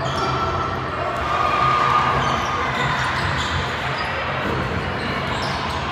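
Basketball bouncing on a gym floor during play, with indistinct voices echoing in the hall.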